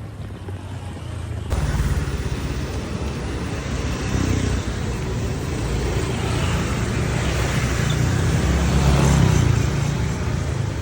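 Steady road-vehicle noise: a low engine rumble under a rushing hiss. It comes in abruptly about a second and a half in and grows gradually louder.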